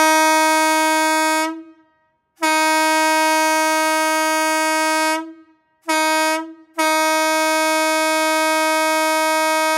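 Single-note locomotive air horn blowing a steady tone: a long blast ending about a second and a half in, then a long blast, a short one and a final long one. Together they make the long-long-short-long grade crossing signal.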